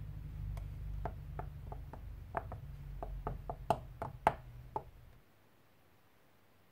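Foamy slime being stirred with a silicone spatula in a glass bowl: about a dozen sharp, irregular clicks and pops, over a low steady hum that cuts off about five seconds in.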